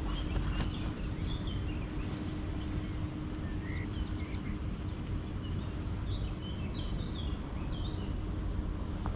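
Small birds chirping now and then over a steady low rumble with a faint even hum.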